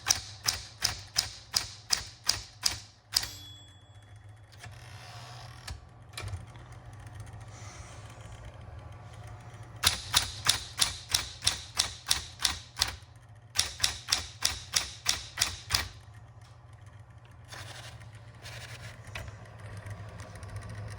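Smith-Corona Electra 120 electric typewriter typing in three runs of even keystrokes, about four a second, with its motor humming steadily underneath. A short ring sounds about three seconds in.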